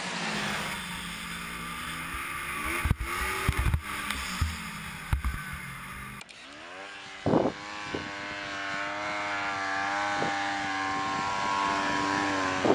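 Yamaha Phazer MTX snowmobile engine revving, its pitch falling away, with several sharp thumps about three to five seconds in. After an abrupt cut about six seconds in, the engine holds a steady high rev, with one more thump shortly after.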